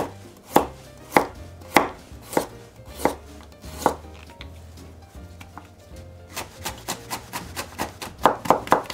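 Chef's knife cutting a carrot on a wooden cutting board, the blade knocking the board with each stroke. Single cuts come about every half second for the first four seconds. After a couple of softer seconds, a faster run of strokes, about four a second and growing louder near the end, cuts the slices into thin julienne strips.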